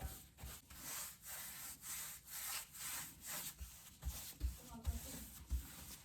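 Pad or cloth rubbing hard wax oil into a wooden tabletop: quick back-and-forth scrubbing strokes, about three a second. Several low thumps follow in the second half.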